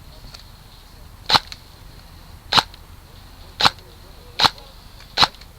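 Airsoft gun firing single shots: five sharp pops about a second apart, at an uneven pace.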